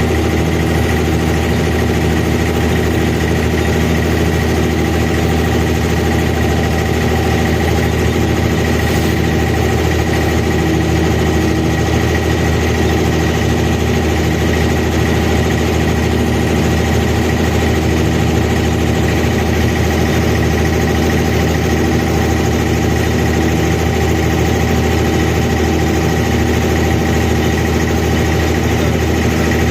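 Abra water taxi's diesel engine running steadily, heard on board.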